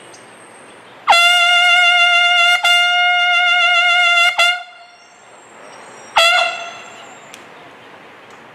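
A bugle of a drum-and-bugle band sounds a call opening the flag honours: one long held note with a slight waver, briefly broken about halfway, then a single short note about two seconds later.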